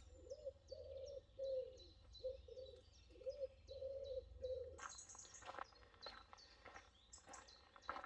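Birds singing: a quick, repeated high chirping song over a low, repeated cooing, typical of a dove or pigeon. About five seconds in the cooing stops and a run of soft clicks and rustles takes over, with the chirping still behind it.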